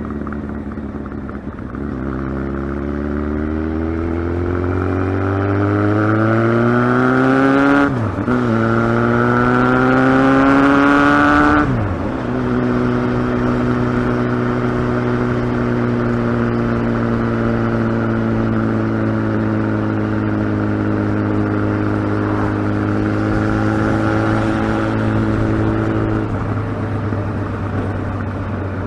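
Kawasaki ZX-12R's inline-four engine pulling up through the revs, with quick upshifts about eight and twelve seconds in, each cutting the revs sharply. It then runs at nearly steady revs, easing off near the end.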